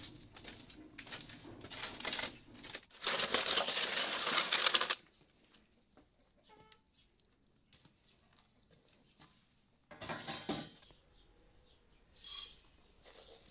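Aluminium foil rustling and scraping as a foil-wrapped whole chicken is carried and pushed onto the floor of a wood-fired brick oven, loudest for about two seconds just after the start. Later come a few short knocks and a brief clink.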